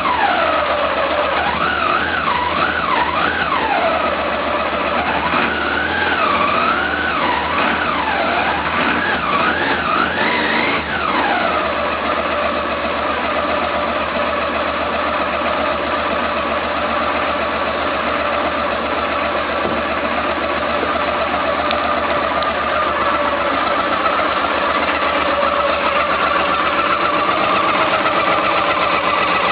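Carburetted motorcycle engine, just tuned up with valves adjusted, carburettors cleaned and new spark plugs, revved up and down with repeated throttle blips for about the first ten seconds, then settling to a steady, even idle.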